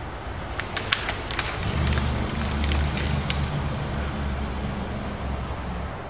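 Pine branches snapping and cracking in a quick series of sharp cracks, then a heavy engine, likely the crane's, running with a steady low drone for about four seconds.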